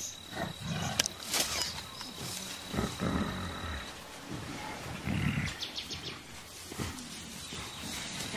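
Mountain gorillas giving low, rough grunts, two of them a couple of seconds apart, over rustling vegetation. A steady high insect whine fades out partway through and returns near the end.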